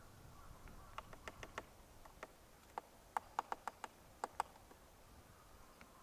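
Grey-headed woodpecker pecking at tree bark: a string of sharp, irregular taps, the loudest coming in a quick run a little past the middle.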